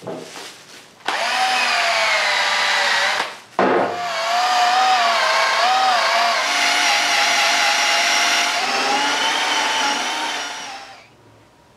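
Cordless drill spinning a cloth buffing mop against the Harley Sportster's polished aluminium engine casing. The motor whine wavers in pitch. Brief trigger blips come first, then it runs, pauses a moment about three seconds in, runs on, and winds down near the end.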